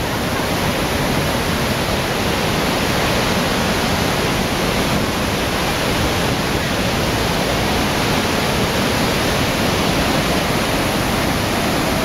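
Niagara Falls' water pounding onto the rocks at its base: a loud, steady rush of noise that never lets up.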